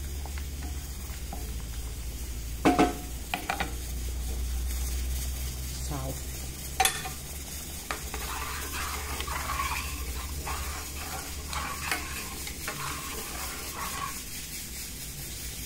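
Wooden spatula stirring rice cooking in liquid in a metal pot, with a few sharp knocks of the spatula on the pot about three and seven seconds in, and scraping and sloshing as the stirring goes on.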